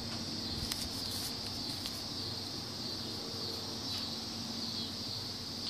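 Steady high-pitched drone of insects calling outdoors in summer, unbroken throughout.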